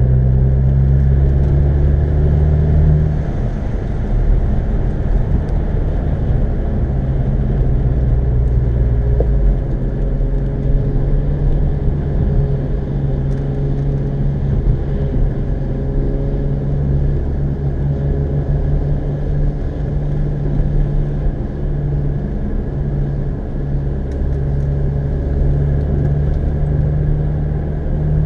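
Car engine running steadily under way, heard inside the cabin with road and tyre noise. The engine note shifts in pitch a couple of times, about three seconds in and again near ten seconds.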